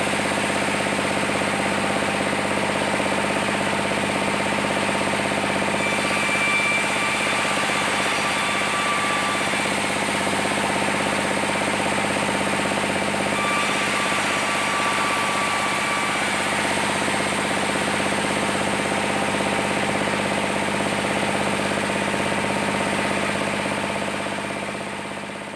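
Sawmill machinery running steadily while sawing saman wood into planks, with a higher whine rising over the hum twice for a few seconds each. The sound fades out near the end.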